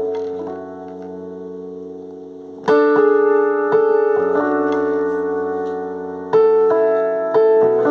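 Piano played slowly in chords: each chord struck and left to ring and fade before the next, the later chords coming about once a second.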